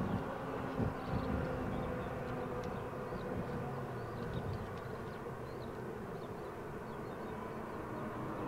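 Embraer E190-E2's Pratt & Whitney PW1900G geared turbofan engines running at taxi power: a steady hum with several held tones, while the jet rolls slowly on the taxiway. Faint short high chirps sound over it.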